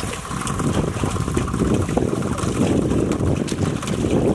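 Wind rumbling on the microphone over the wash of a pedal-driven PVC-pipe water bike's paddle wheel moving through water, with faint clicks from the drive.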